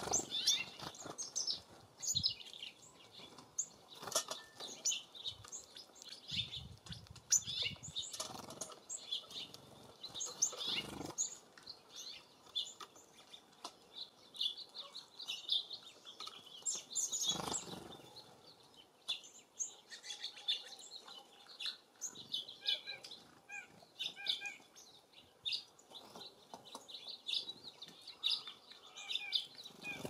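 Small songbirds chirping almost continuously in short, high twitters, with a few brief fluttering whooshes of wings as birds fly to and from the feeder.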